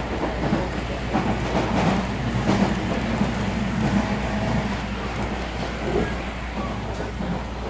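HO scale model freight cars rolling past on the layout's track: a steady rolling rumble of the wheels with scattered clicks as they cross the rail joints.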